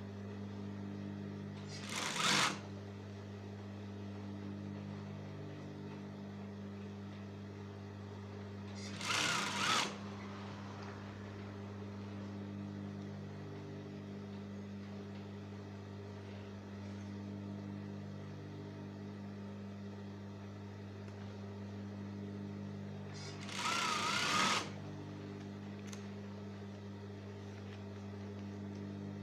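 Sewing machine motor humming steadily, with three short runs of stitching: one near the start, one about a third of the way through, and a slightly longer one near the end.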